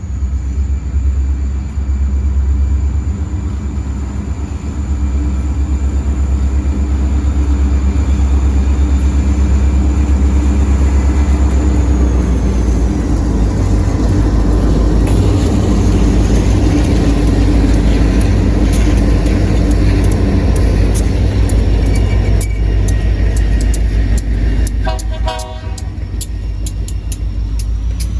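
Diesel freight locomotive going by with its air horn sounding, over a heavy deep rumble, with a short horn blast near the end and scattered sharp clicks in the second half.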